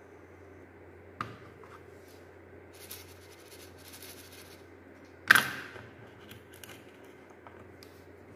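Small hard plastic parts of a handheld mini fan being handled on a table. A sharp click about a second in, light rubbing and scraping, then a loud sharp knock a little past halfway as the plastic stand is set down, followed by a few faint clicks.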